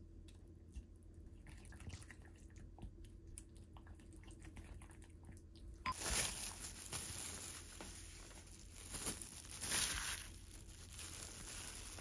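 A wooden spoon stirring a thick soy-based marinade in a glass bowl: faint ticks of the spoon on the glass at first, then louder wet squishing and sloshing from about six seconds in.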